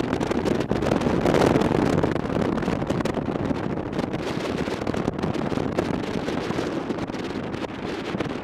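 Wind rushing over the microphone of a moving motorcycle, swelling louder about a second in and then easing back to a steady rush.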